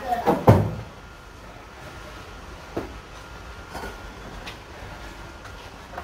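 A loud thump about half a second in, followed by a few faint clicks or knocks over low background noise.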